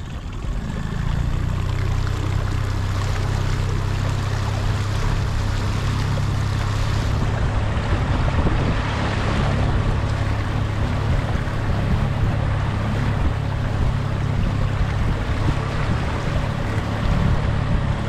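Small boat motor pushing the inflatable across the water, coming in about half a second in and then running at a steady low hum, with wind and water noise over it.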